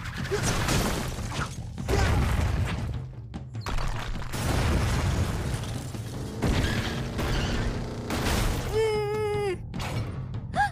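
Cartoon action sound effects: several crashes and booms of stone pillars breaking under an energy blast, over dramatic background music.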